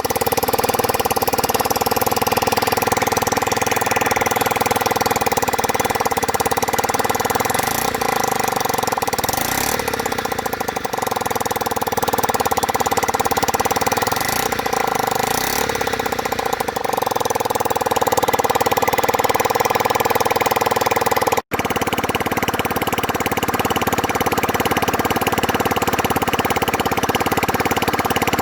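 Honda Metropolitan scooter's small four-stroke single-cylinder engine running steadily at idle, with a brief dropout about two-thirds of the way through. The owner takes the engine's noise for an exhaust leak or missing exhaust rather than a rod knock.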